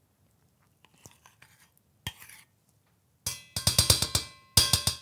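Faint scraping of a spoon moving soft butter from a small bowl into a steel mixing bowl, with one sharp knock about two seconds in. Past the midpoint, loud background music with a drum beat comes in and takes over.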